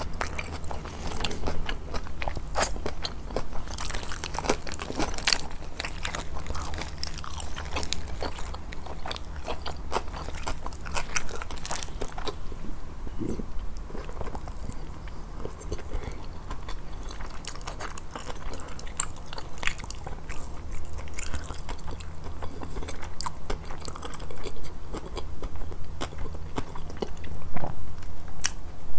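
Close-miked eating sounds from a grilled fish meal: wet chewing and biting with sharp crunchy crackles, busy for the first dozen seconds and sparser after. A steady low hum runs underneath.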